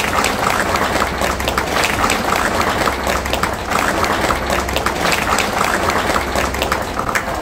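A group of people clapping and applauding: many quick, irregular hand claps overlapping, over a low steady hum.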